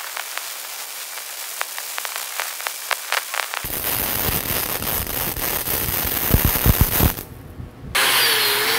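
Gasless flux-cored (E71T-11) wire-feed welding arc crackling and popping steadily through a weave fill pass for about seven seconds, then going out. About a second later an angle grinder starts up and runs steadily with a high whine.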